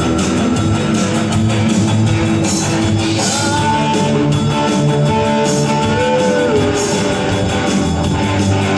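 Rock band playing live through amplifiers: electric guitars and bass guitar.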